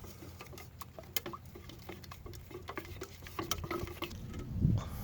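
Gel coat being stirred with a stick in a mixing cup after the hardener is added: rapid, irregular small clicks and taps of the stick against the cup. A low rumble comes up near the end.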